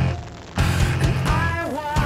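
Rock song playing, with drums and a gliding melody line; the music drops low at the start and comes back in fully about half a second in.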